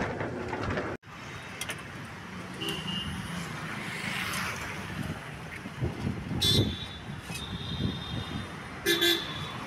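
Steady road traffic noise, with a few short, high ringing sounds standing out about three seconds in, past the middle and near the end.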